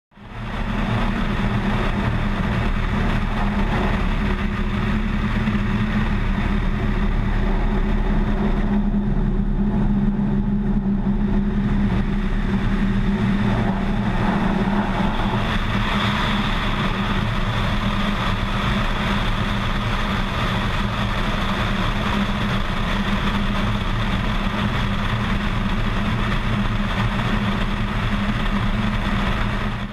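Cessna light aircraft's piston engine and propeller droning steadily, with air rushing past the outside-mounted camera as the plane spins. The rushing hiss thins out for a few seconds about a third of the way in, then comes back louder and brighter from about halfway on.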